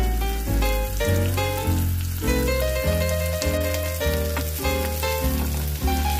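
Background music with a steady beat, bass line and melody, over the sizzle of hot oil in a frying pan as boiled potatoes are stirred in.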